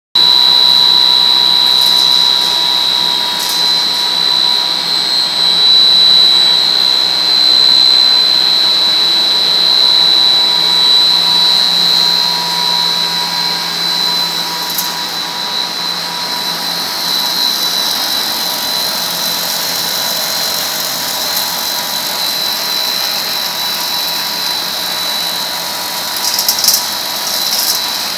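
Fully automatic tortilla machine running: a steady mechanical whir with a constant high-pitched whine, and a few sharp clicks near the end.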